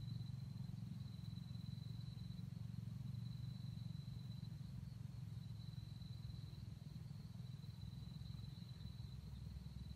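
An insect trilling steadily on one high note over a low, steady rumble.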